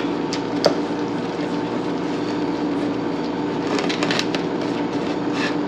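A steady mechanical hum runs throughout. Over it come a few light clicks of a utensil stirring batter in a stainless steel mixing bowl as milk is poured in, clustered about four seconds in.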